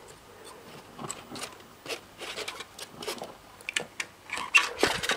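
Handling noise from a micro RC helicopter and its polystyrene packaging tray: plastic and foam rubbing and scraping, with irregular light clicks that grow louder near the end, as the helicopter is lifted out and its plastic canopy is worked off.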